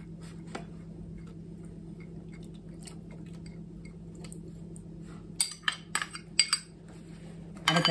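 Chopped garlic tipped from a small glass bowl into a pan of fish in spiced water: light ticks, then a quick cluster of glassy clinks from the bowl about five and a half to six and a half seconds in, over a steady low hum.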